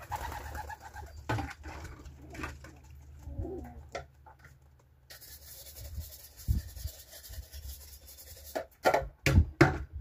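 Racing pigeons cooing, with several loud, sharp knocks or clatters near the end.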